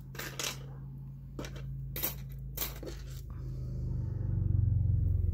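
Metal costume jewelry clinking and tapping as a gold-tone chain bracelet is picked up and handled: a handful of light clicks over the first three seconds or so. A steady low hum runs underneath and grows louder near the end.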